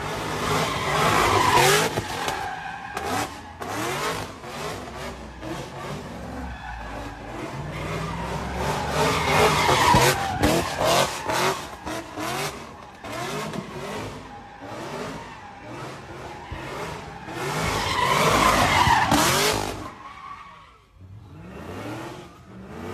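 Car doing donuts: tyres screeching over a revving engine, swelling in three loud surges about two seconds in, around ten seconds and near nineteen seconds, then briefly dropping away near the end.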